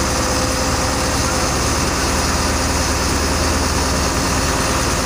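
Diesel engine of a Cedarapids CR-461R Grayhound asphalt paver running steadily at idle.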